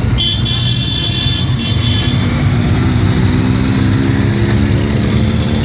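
Motorcycle engines running as bikes ride past at low speed, one engine's pitch slowly rising in the second half. A high steady tone sounds over them for about the first two seconds.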